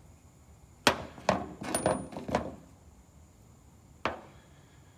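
A handful of sharp clinks and knocks of hard parts or hand tools being handled and set down: one about a second in, a quick cluster over the next second and a half, and a last one near the end.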